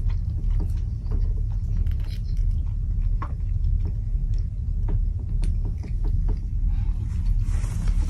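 Steady low rumble of a cruise ship, heard in a cabin, with scattered light clicks of wooden chopsticks against a plastic sushi tray.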